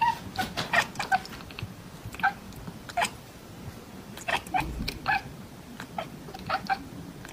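Tabby cat chattering at something it is watching through a window: short, stuttering chirps that come in quick clusters of several calls, with brief pauses between the clusters.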